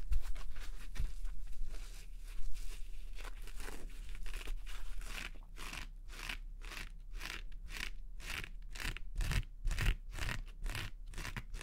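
Soft padded mesh-fabric pet cone (Elizabethan collar) being squeezed and rubbed by fingers close to the microphone, giving a crunchy rustle. The strokes are irregular at first and settle into a steady run of about three a second from about halfway.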